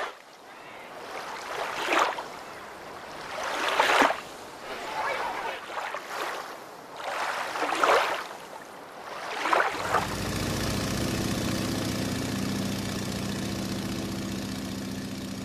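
Sea water sloshing and surging at the surface, in swells that peak about every two seconds. From about ten seconds in, a steady low drone with several held tones takes over.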